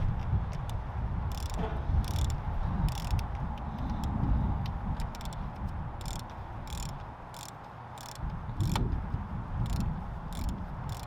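Ratchet wrench clicking in short bursts, repeated every half second or so, as the top cap of a RockShox Boxxer fork is tightened down. A low handling rumble runs underneath.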